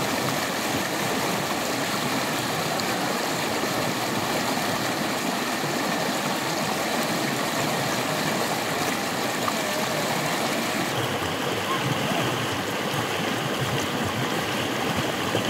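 Shallow mountain stream rushing and splashing over rocks, a steady watery hiss. About eleven seconds in, the higher hiss drops a little.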